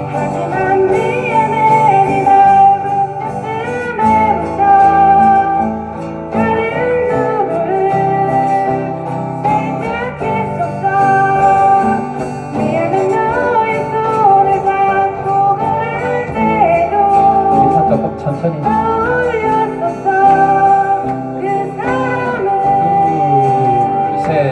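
Amateur live band playing a song, with guitars over a steady bass line and a held, sliding melody that bends in pitch.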